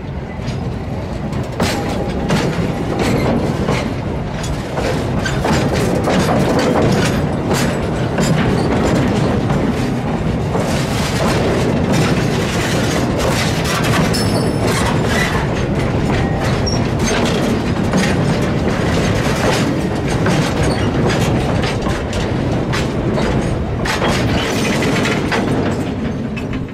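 A train of 900 mm narrow-gauge hopper wagons rolls past close by. Its wheels click over the rail joints over a continuous rumble and rattle. It grows louder over the first few seconds as the wagons come alongside.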